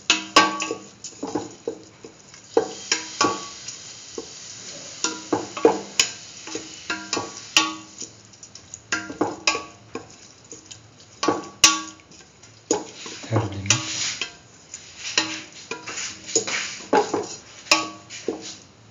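Spatula stirring and scraping boiled mung beans with roasted vermicelli and cardamom around a pan. The scrapes and clinks come irregularly, some ringing briefly off the pan.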